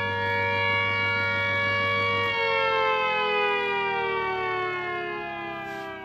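Scale model Gents air raid siren wailing at full pitch, then switched off about two seconds in, its motor hum stopping as the wail winds down in pitch; it starts rising again at the very end.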